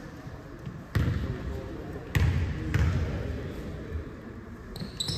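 Basketball bounced on a hardwood court floor, about three bounces a second or so apart.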